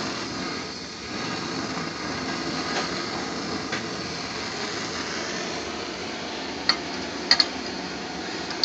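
Steady rushing noise of a lit gas hob burner flame, with a few sharp clicks near the end.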